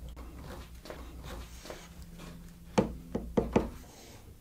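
Light handling noise of sheet-material workpieces being nudged into line by hand: faint rubbing, then about four quick small knocks of board against board a little under three seconds in, over a faint low hum.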